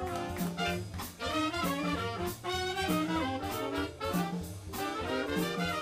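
Live big band jazz: saxophone, trombone and trumpet sections playing together over a steady beat.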